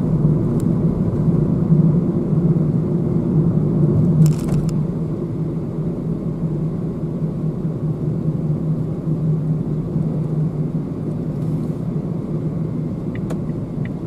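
Steady low hum of a car's engine and road noise heard from inside the cabin while driving. A short burst of noise comes about four seconds in, and the hum is slightly quieter after it.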